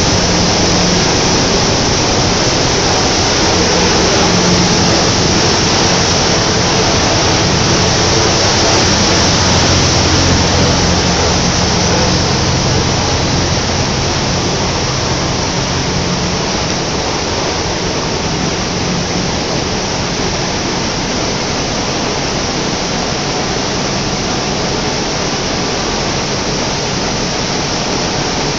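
Tissue paper production machinery running: a loud, steady hiss with a low hum underneath, the hum and level easing slightly about halfway through.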